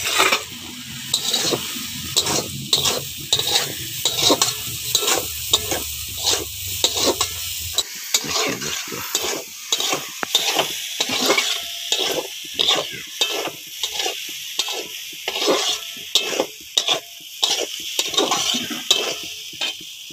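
A metal spatula stirs and scrapes potatoes and egg pieces around a metal kadai in repeated strokes, about two a second, over the steady sizzle of the frying.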